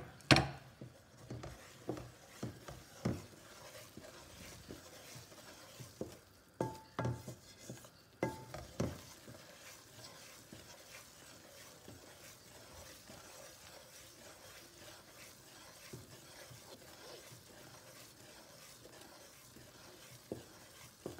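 A wooden spatula stirring in a metal pot. There are several sharp knocks and scrapes against the pot in the first nine seconds or so, then a quieter steady scraping as the thick gram-flour and ghee paste is stirred, with a faint sizzle.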